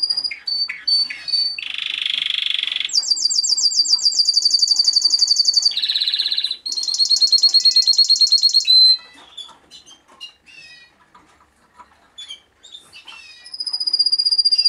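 Male Timbrado Español canary singing. The phrase goes from short high notes into a buzzy, rasping passage, then fast rolling trills, a second buzzy passage and more fast trills, and breaks off about nine seconds in. After scattered short chirps, a new phrase starts near the end with a held high whistle.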